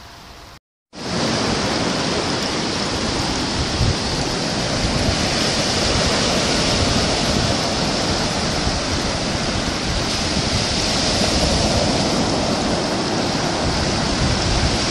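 Steady rush of running water: water pouring out of a concrete drain into a litter-strewn pool and running off across sand. It starts abruptly about a second in, after a brief quieter stretch, and holds at a constant level.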